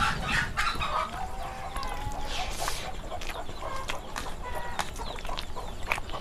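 Chickens clucking, with one drawn-out call early on, mixed with scattered light clicks and clinks.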